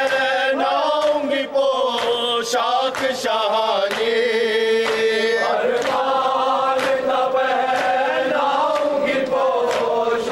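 Several men chanting a Shia noha lament in Urdu, a lead voice with others joining in unison, over steady slaps of chest-beating (matam) at about one and a half a second.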